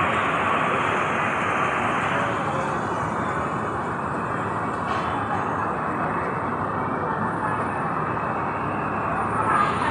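Steady urban road-traffic noise, an even wash of passing vehicles with no distinct events.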